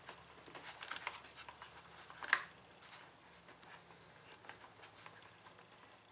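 Faint clicking and rubbing as a cover panel on a Suzuki Ozark 250 ATV is handled and worked into position, its front pin being lined up to snap into place, with one sharper click about two seconds in.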